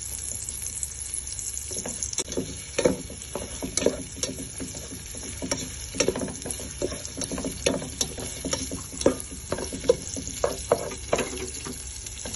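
Sliced onions and ginger sizzling in hot oil in a pan, with a steady hiss. A spatula stirs them, scraping and tapping against the pan many times from about two seconds in.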